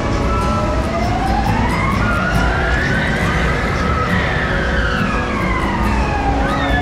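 Siren wail at a fairground ride, slowly rising and falling in pitch: it climbs for about three seconds, sinks again, and starts rising once more near the end. Under it runs a steady loud fairground din.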